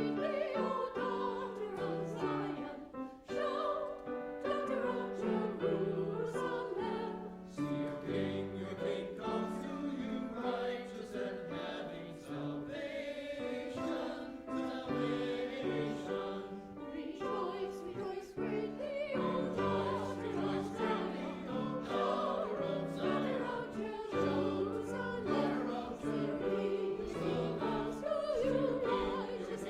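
Voices singing a hymn together with instrumental accompaniment, in a steady rhythm over a moving bass line.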